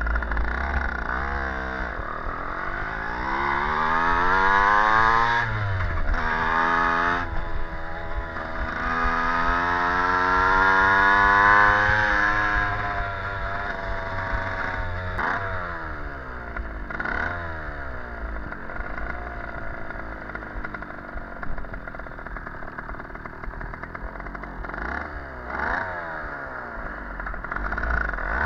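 Stadion S11 moped's 50 cc two-stroke engine running under way, its pitch climbing as it is revved and dropping back sharply several times as the throttle is eased off.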